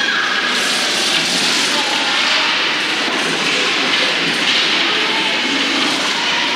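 Steady ice-arena background noise during a hockey game, with faint voices mixed in.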